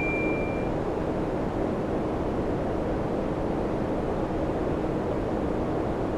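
Samsung air conditioner running, blowing air with a steady rush and a low hum. A single high electronic beep from the unit ends within the first second.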